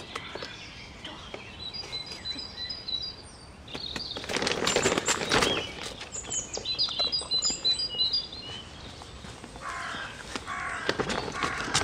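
Small birds chirping in two quick runs of short high notes. Between and after them comes a rough rustling and scraping of the nylon dog tunnel, loudest about four to six seconds in.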